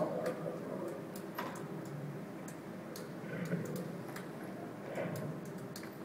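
Animatronic saber-toothed cat's mechanism working, with sharp irregular clicks about once a second over a soft background murmur as the figure moves its head and opens its jaws.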